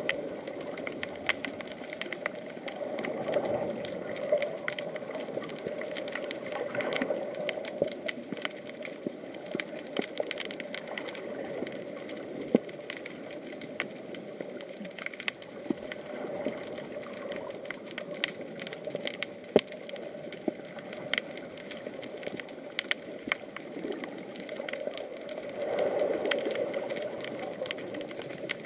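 Underwater ambience picked up by an action camera: a steady muffled wash with many scattered sharp clicks and crackles, swelling briefly a few seconds in and again near the end.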